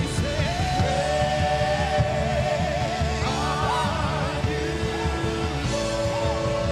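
Live contemporary worship band playing with drum kit and electric guitars under lead singing that holds long notes with a wide vibrato.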